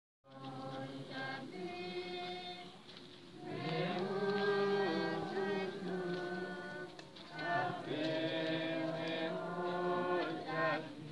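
A group of mourners singing a slow song together, with long held notes in phrases.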